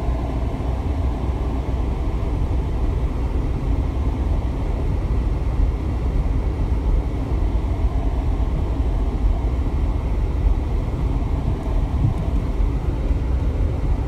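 Car driving slowly along a snow-covered alley, heard from inside the cabin: a steady low rumble of engine and tyres.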